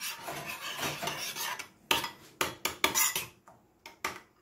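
Metal spoon beating a thick yogurt dip in a ceramic bowl, scraping and clinking against the bowl: steady stirring at first, then about two seconds in a run of quick, sharp strokes, dying down to a few light taps near the end.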